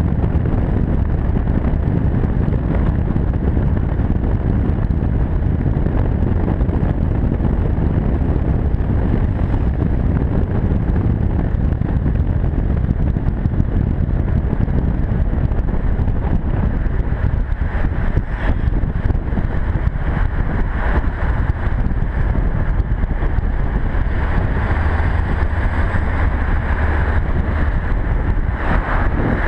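Honda NC700X motorcycle riding at road speed: wind rushing over the camera microphone, with the bike's parallel-twin engine and tyre noise underneath in a steady low rumble.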